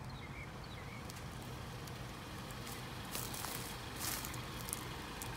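Footsteps crunching and rustling through dry leaf litter, with a cluster of sharp crackles in the second half.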